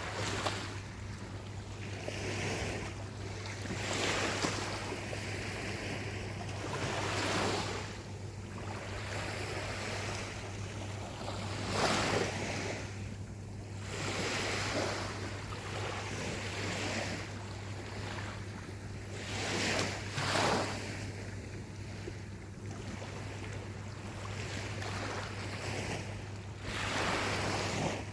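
Gentle ocean waves breaking and washing up a beach, each surge swelling and fading every few seconds, under a steady low hum.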